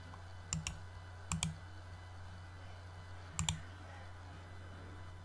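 Computer mouse clicking: three quick pairs of clicks, about half a second, a second and a half, and three and a half seconds in, over a steady low electrical hum.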